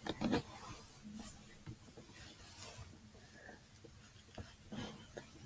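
Faint rustling and rubbing of hair and a cat-ear headband being put on, with a few soft clicks and knocks near the start and again near the end.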